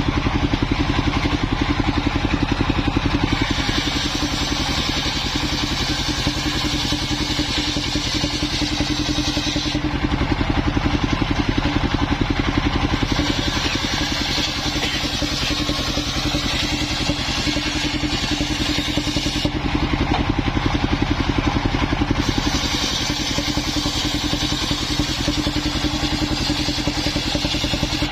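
Engine-driven circular saw ripping waru wood lengthwise: the engine runs steadily throughout, while a high cutting hiss from the blade in the wood comes in three passes of about six seconds each, with short pauses of about three seconds between them.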